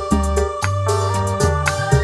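Tarling dangdut band playing an instrumental passage: an electronic keyboard melody over a bass guitar line, electric guitar and hand drums, with a steady beat.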